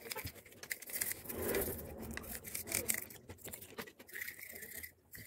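A brush scrubbing carbon deposits off a diesel EGR valve, here a Renault 1.5 dCi K9K's, in short, uneven scratching strokes.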